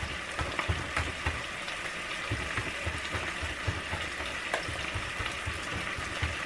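Bacon sizzling steadily in a stainless steel frying pan over low heat, with scattered small pops. Repeated soft knocks of a knife dicing garlic on a cutting board run through it.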